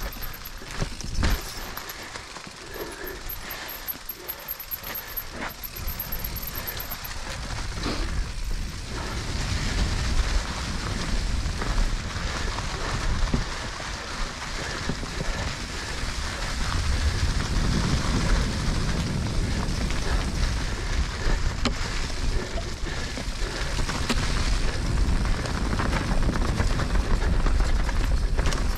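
Mountain bike riding down a rough trail, heard from a helmet-mounted camera: tyres rolling over dirt and rock, the bike rattling with occasional sharp knocks, and wind rushing on the microphone. The noise grows louder and denser after about nine seconds as the pace picks up.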